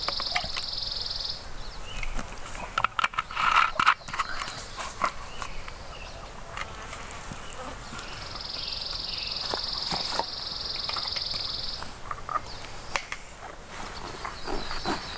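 A high, even trill from a small wild animal, heard twice, the second time lasting about three and a half seconds. A cluster of loud knocks and rustles about three seconds in is the loudest part.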